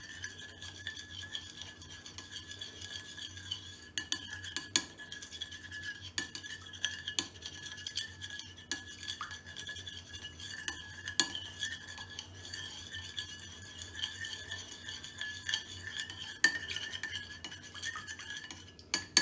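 Metal spoon stirring egg and milk in a ceramic bowl, scraping and clinking against the bowl in irregular taps as the batter is beaten together. A steady high-pitched whine runs underneath.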